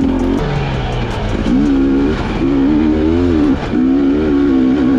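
Dirt bike engine running hard on the trail, its pitch wavering with the throttle; the revs dip and climb back up a few times.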